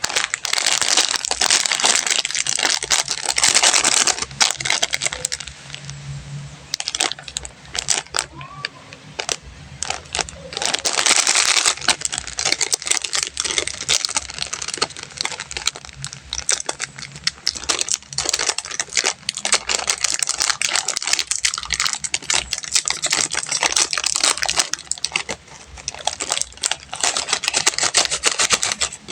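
Plastic candy wrappers crinkling and tearing as sweets are unwrapped by hand close to the microphone. The crackling is loud in spells, at the start, in the middle and near the end, with quieter rustling and handling between.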